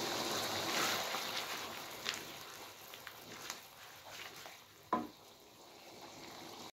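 Chili sambal simmering in a wok and stirred with a spatula: a steady bubbling sizzle that dies down after the first couple of seconds, with a few light scrapes and one sharper knock of the spatula against the pan about five seconds in.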